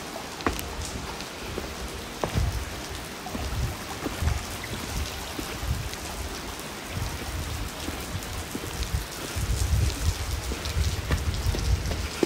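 Steady patter of falling water drops, with scattered sharper drips and irregular low thumps underneath, the thumps heavier in the latter half.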